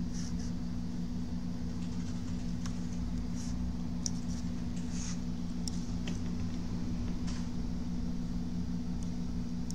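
Steady low hum of running bench equipment, with several faint light clicks scattered through as multimeter probe tips touch and tap on a laptop motherboard.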